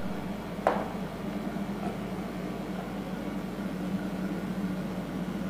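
Room tone: a steady low hum over a faint hiss, with a single faint click under a second in.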